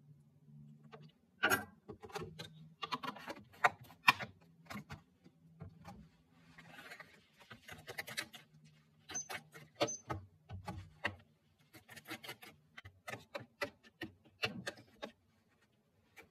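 Metal spoon stirring oats and milk in a plastic tub, scraping and clicking irregularly against its sides and bottom. It starts about a second and a half in.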